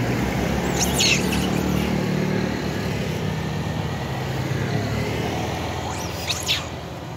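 A motor vehicle's engine running steadily at low revs, slowly fading over the last couple of seconds. Short high-pitched calls come through about a second in and again near the end.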